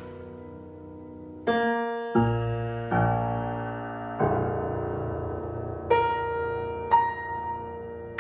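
c.1982 Steinway Model L grand piano playing a slow series of about six chords, each struck and left to ring and fade, the ones in the middle reaching down into deep bass notes.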